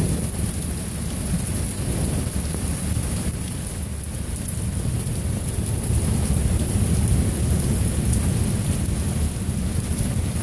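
Heavy thunderstorm: steady rain falling, with rolling thunder rumbling low underneath that swells a little past the middle.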